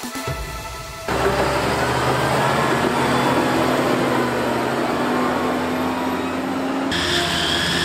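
Tractor engine running under load with a steady rumble and noise as the tractor drives over chopped silage crop. It starts abruptly about a second in as background music ends, and changes to a higher whine near the end.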